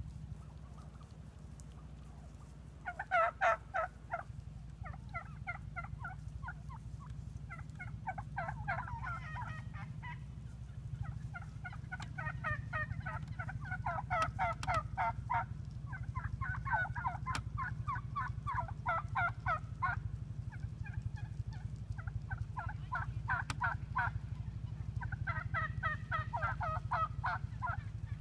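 A flock of wild turkeys calling, starting about three seconds in. The calls come in bursts of quick, rapidly repeated notes, each a second or two long, recurring every few seconds.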